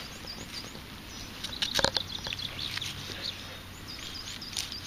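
Small birds chirping repeatedly in the background, with a cluster of sharp knocks and scrapes about two seconds in as the ground is dug into.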